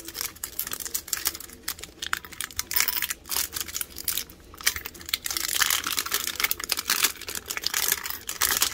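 Clear plastic shrink-wrap being picked at and peeled off a round metal Pokémon ball tin. It is a run of crackling, crinkling and sharp clicks that gets busier and more continuous about five seconds in.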